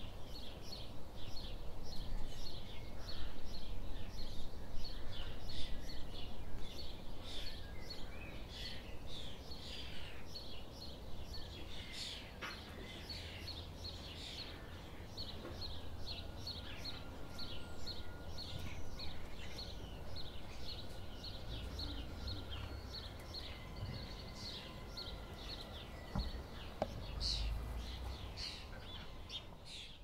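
Garden birds calling and singing together: a dense chorus of rapid, repeated short high chirps, over a low background rumble.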